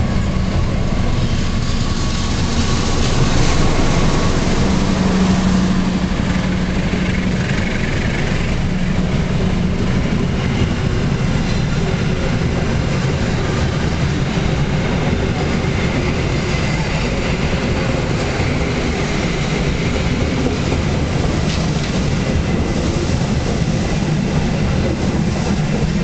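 A diesel-hauled passenger train passing close by through a station without stopping: the locomotive goes by first, loudest a few seconds in, then a long, steady run of coaches clattering past on the rails.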